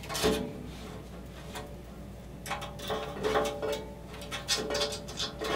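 A power-switch cable being fed through an opening in a metal PC case frame, rubbing and scraping against the metal edges, in irregular bursts that pick up about halfway through.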